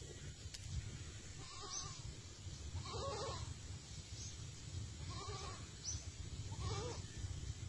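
An animal giving four short pitched calls, about a second and a half apart, over a low steady rumble.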